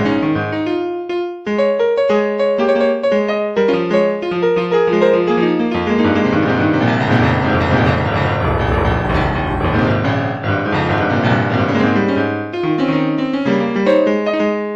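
Piano music: a flowing run of notes over low bass notes, with a short dip about a second and a half in.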